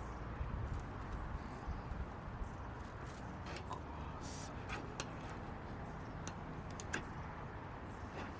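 Scattered light clicks and taps of camp gear being handled over a steady low outdoor rumble.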